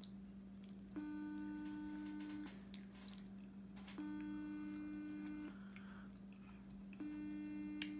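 Ringback tone of an outgoing phone call on speakerphone: a steady tone about a second and a half long, repeating every three seconds and sounding three times, while the call goes unanswered. A steady low hum runs underneath.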